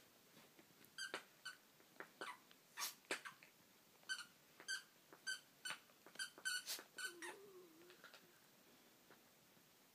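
A squeaky dog toy squeaking over and over, about twice a second, as a small dog chews it, then a brief low sound from a dog a little past the middle.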